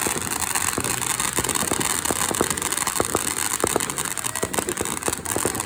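Firework fountain spraying sparks: a steady loud hiss with many scattered crackles and pops.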